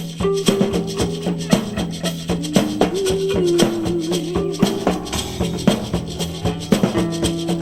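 Music with a steady beat of drums and a shaker, with long held notes over it; one note wavers about three seconds in.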